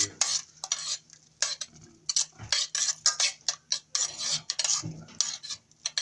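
Metal spoon stirring and scraping a thick tomato-and-onion sauce in a steel pot, in quick, irregular strokes, over a steady low hum.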